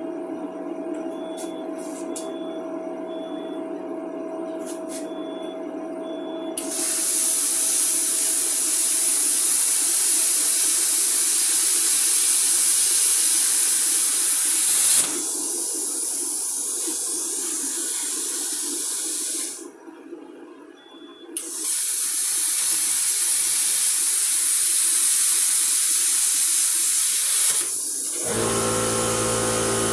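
A Warfox plasma cutter torch hissing loudly with compressed air, in three long stretches of several seconds with short breaks between. Near the end a motor starts and runs with a steady hum.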